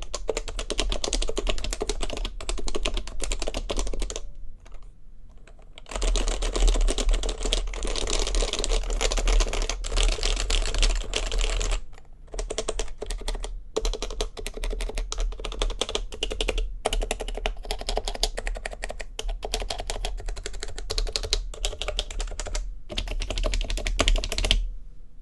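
Typing on the Heavy Grail custom keyboard with stock HHKB Professional Classic Topre switches, an ABS plate and stock keycaps: fast, continuous keystrokes. The typing pauses briefly about four seconds in, and breaks off for a moment around twelve and twenty-three seconds.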